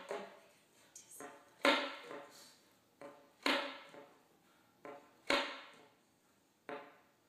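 Solo saxophone playing short, sharply attacked notes in a sparse rhythm. The notes come in pairs, a softer one then a louder one, about every two seconds, each ringing briefly in the room.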